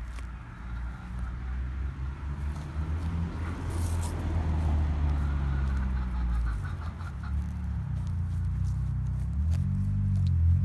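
Steady low engine rumble of a motor vehicle, growing louder toward the end and shifting in pitch near the end. Over it, light rustling of footsteps through dry grass.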